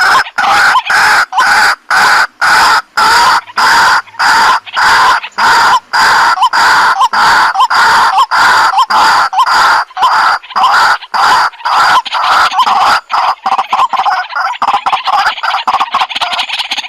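A bird's clucking call repeated rapidly and very evenly, about three notes a second, the kind of looped call played from a sound device to lure birds to a trap. The notes get less even and a little softer over the last few seconds.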